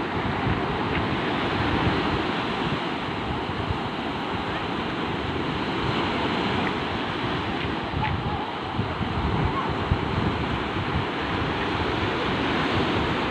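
Sea waves washing on a beach, with wind buffeting the microphone in a steady rumble.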